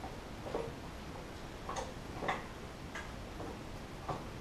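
A cooking utensil tapping and scraping lightly against a pan as ribs are stirred in barbecue sauce: a few soft, irregular clicks.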